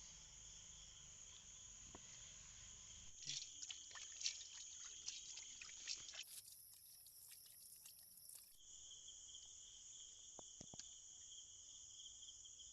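Insects chirping steadily in a high, even drone, shifting to a higher pitch for a couple of seconds around the middle. A run of small clicks and knocks sounds for a few seconds before that.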